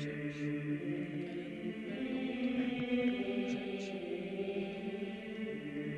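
Slow background music of long held chords, changing about two seconds in and again near the end.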